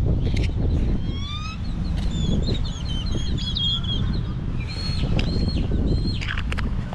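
Wild birds chirping and whistling, with many short calls and a few quick series of rising notes, over a steady low rumble.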